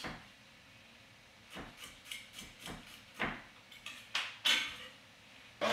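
Chef's knife roughly chopping garlic cloves on a wooden chopping board: a run of irregular knocks of the blade on the wood, starting about a second and a half in.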